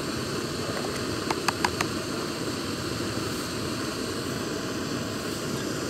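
Backpacking canister stove burning under a pot with a steady hiss. A few light clicks come about a second and a half in.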